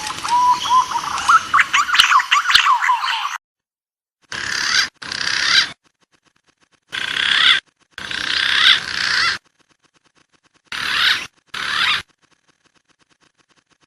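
Lure recording of wild pigeon calls: a rising whistle leading into a run of rapid warbling, whistled notes, then three pairs of short call bursts separated by clean silences.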